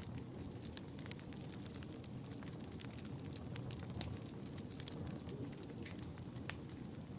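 Wood fire burning in a fireplace: a steady low rush of flames with frequent sharp crackles and pops, two louder pops about four and six and a half seconds in.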